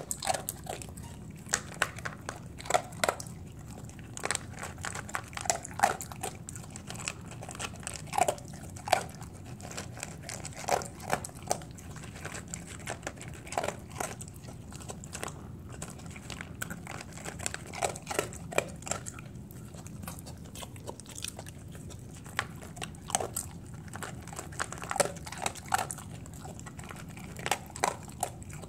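Dog eating dry kibble from a stainless steel bowl: irregular crisp crunches as it bites and chews the pellets, a few every second or two.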